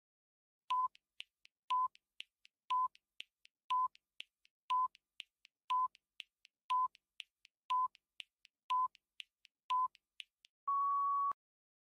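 Countdown timer sound effect: a short electronic beep once a second, ten times, with light ticks in between, ending in one longer beep near the end as the timer runs out.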